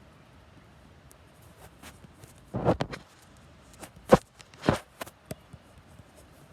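A few brief rustles and knocks of handling, a cluster of rustling a little under three seconds in, then two sharper knocks near the middle and a small tap after.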